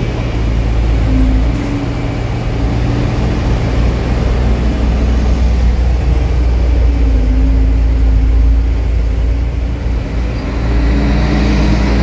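Kato truck crane's diesel engine running steadily while it works the crane, a deep hum whose pitch shifts a little, picking up slightly near the end.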